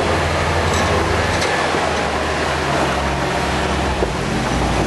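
Off-road 4x4 truck engine running at low revs over a steady rushing hiss, its pitch stepping up slightly about two and a half seconds in.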